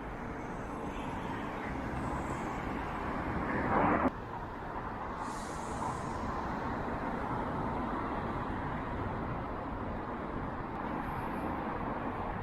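Outdoor street ambience: a steady wash of road traffic noise. It swells up to about four seconds in, cuts off abruptly, then goes on steadily.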